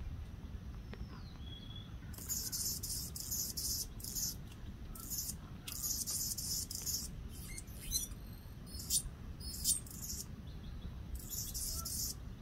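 Anna's hummingbird singing from a perch: a run of high, thin, scratchy phrases, some over a second long and some brief, with short pauses between them, over a low steady rumble.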